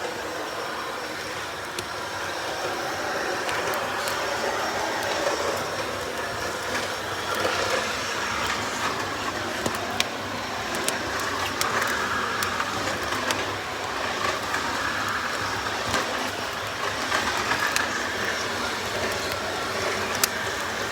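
Fire crackling: a steady rushing hiss with scattered sharp pops and snaps.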